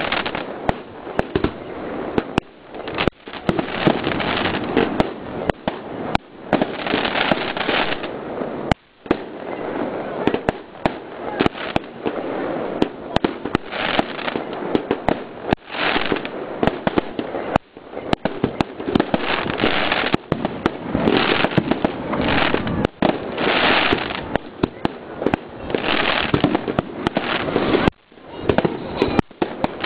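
Fireworks display: aerial shells bursting in quick, irregular succession, many sharp bangs over a constant noisy background.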